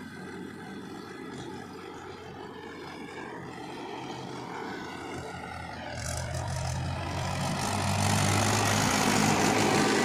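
Mahindra 475 DI tractor's diesel engine running steadily as it tows a trailer loaded with soil, growing louder as it draws close, loudest in the second half.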